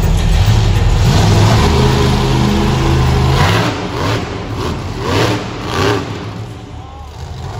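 Monster truck engine running loud and low, revving for about three and a half seconds, then dropping back with a few short surges as the truck wheelies over a row of crushed cars.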